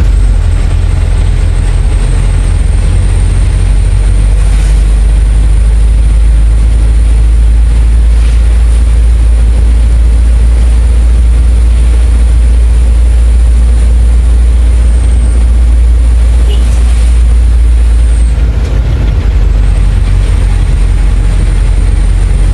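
Truck engine running steadily under way, heard from inside the cab as a loud, unbroken low rumble. A thin high whine runs over it and drops out for a moment about three-quarters of the way through.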